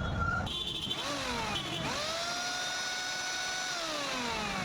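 Mixer grinder's universal motor, fitted with a new armature, run briefly on test. A whine rises quickly to a steady pitch, holds for about two seconds, then falls away as the motor coasts down after switch-off. A shorter falling whine comes just before it.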